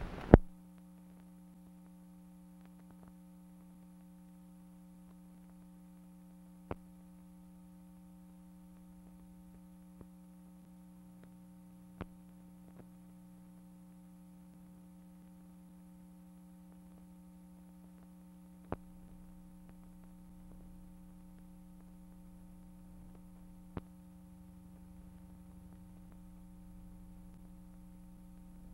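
Steady electrical hum with a handful of sharp single clicks scattered through it, the loudest right at the start. This is the background noise of an old film transfer; no sound comes from the scene itself.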